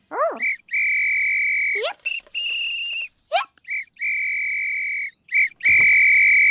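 A small whistle blown in a short-toot, long-toot pattern four times. Quick squeaky pitch slides come between some of the pairs.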